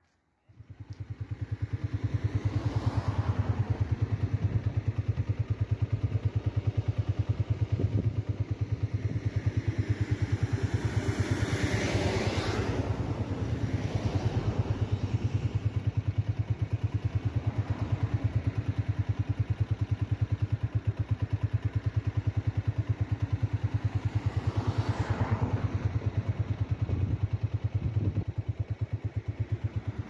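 A motor vehicle's engine running steadily with a fast, even low pulse. The noise swells twice, about twelve and twenty-five seconds in.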